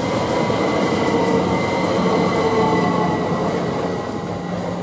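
A pair of coupled Class 387 electric multiple units running along the platform, with rail and wheel noise and a steady whine of several held tones. The sound eases slightly near the end as the train slows.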